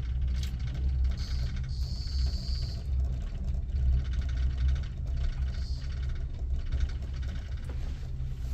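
Steady low rumble inside a moving gondola cabin with open windows, the ropeway's running noise mixed with wind coming in. A brief high hiss rises over it about a second in and lasts under two seconds.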